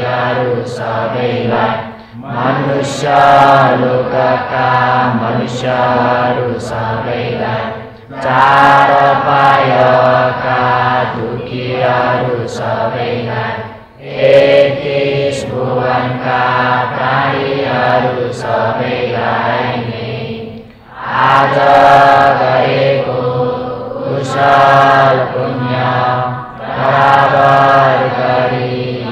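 Buddhist merit-sharing chant: voices chanting together in long, sustained phrases of about six seconds each, with a short breath pause between phrases.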